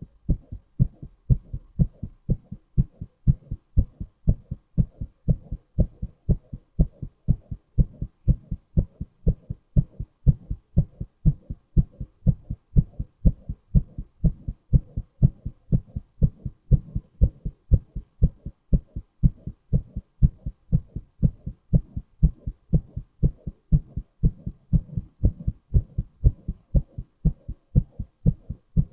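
A man's heartbeat, recorded close up: a steady, even train of low, dull beats.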